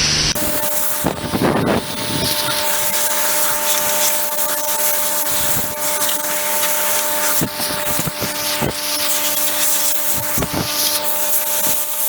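Compressed-air blow gun hissing as it blasts dust and chaff off a baler, the hiss swelling and fading as the nozzle moves, over the steady hum of a Hydrovane rotary-vane air compressor.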